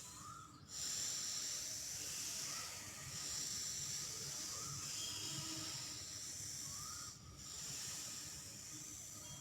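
Pranayama breathing drawn in through the teeth: long hissing breaths with short breaks between them.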